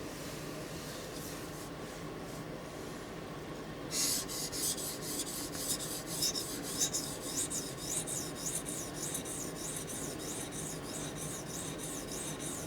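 Steel tanto blade of a Microtech Combat Troodon OTF knife being stroked back and forth across a sharpening stone, a scraping rasp that starts about four seconds in and runs at about two strokes a second.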